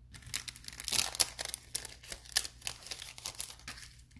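Thin clear plastic crinkling and crackling as it is handled, with a quick run of sharp crackles that stops shortly before the end.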